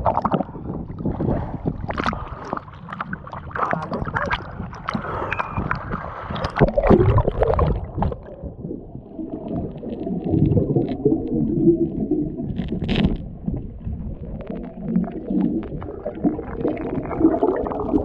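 Seawater sloshing and splashing against the microphone as it moves between the surface and underwater, with muffled gurgling and bubbling while it is submerged.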